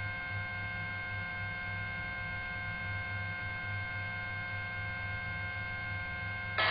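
Steady hum with a few faint, high, steady whining tones above it: the background noise of a police helicopter's onboard intercom audio feed while no one is transmitting.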